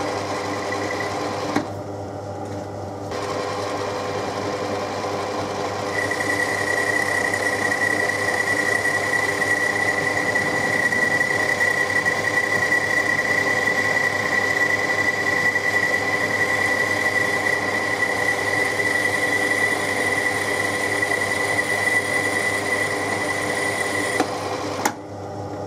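Myford ML7 lathe running steadily. From about six seconds in until near the end, a steady high whine sits over the machine's hum.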